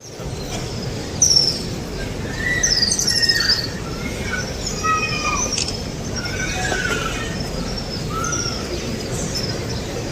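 Many small birds chirping over one another, short gliding calls coming thick and fast, over a steady low background hum.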